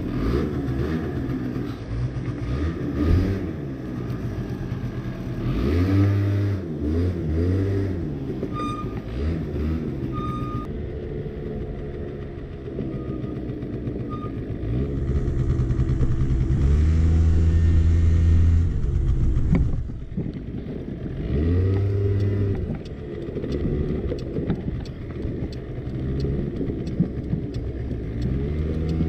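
A 50cc scooter's small single-cylinder engine running and pulling away, its pitch rising and falling several times as the throttle is opened and eased off.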